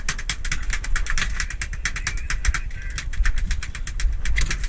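A rapid, uneven run of sharp clicks, several a second, over the steady low rumble of a boat's engine.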